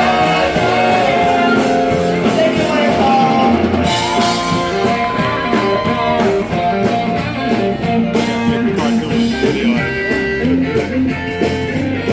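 Background music: a song with guitar, drums and a singing voice.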